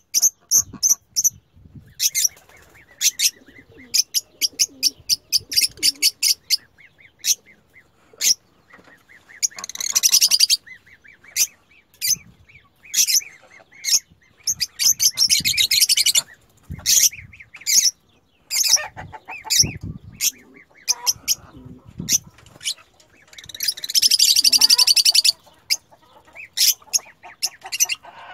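Lovebirds calling: strings of sharp, high-pitched chirps, broken by longer stretches of rapid chattering about ten seconds in, around fifteen seconds and again near the end.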